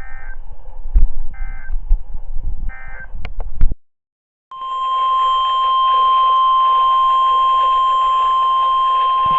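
NOAA Weather Radio receiver sounding three short bursts of the SAME digital data code, the end-of-message signal closing the warning, followed by a few clicks. After a brief dropout, the steady 1050 Hz warning alarm tone comes on over radio hiss about four and a half seconds in, the alert that a new warning is about to be read.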